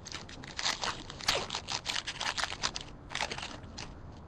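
Crinkling and tearing of a trading-card pack's foil wrapper as it is ripped open and handled, a quick run of crackles and rustles.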